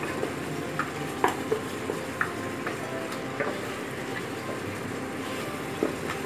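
Spatula stirring a simmering prawn curry in coconut milk in a metal pot, with a steady sizzling hiss from the hot curry and short clicks and scrapes of the spatula against the pot every second or so.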